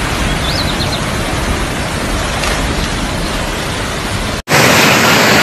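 Steady rushing of fast-flowing muddy floodwater, an even noise. A little over four seconds in it cuts off abruptly and a louder, brighter rush of water takes over.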